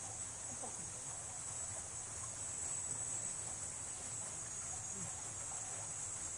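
Steady, high-pitched chorus of insects in summer grass and trees.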